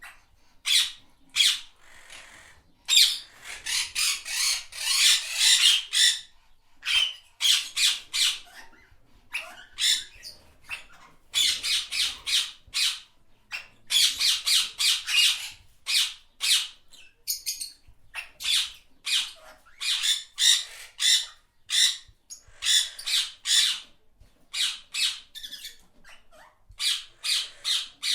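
Parrots squawking: many short, harsh calls in rapid runs and clusters, with brief pauses between bouts.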